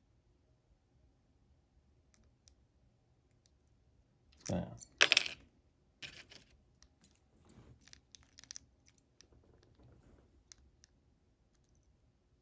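Lockpicking tools working in an American 1100-series padlock: faint metal ticks and clicks of the pick and tension tool. A louder metallic clatter comes about four and a half seconds in, followed by scattered small clicks as the picking resumes.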